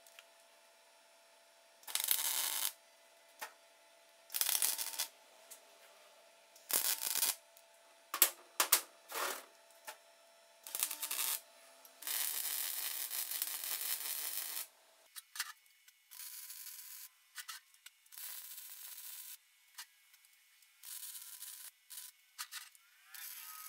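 MIG welder striking short welds on steel box-section tubing: a string of separate hissing bursts, each under a second, then one longer bead of about two and a half seconds a little past halfway, with fainter bursts after it.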